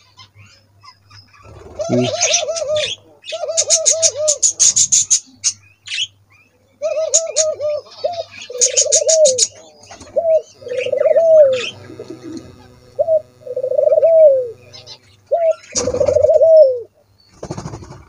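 White doves cooing: quick runs of short rising-and-falling coo notes alternating with longer drawn-out coos that drop in pitch at the end, repeated many times.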